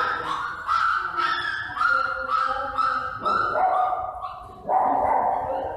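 Dog whining, a quick run of short high-pitched cries that step up and down in pitch, with a louder cry near the end.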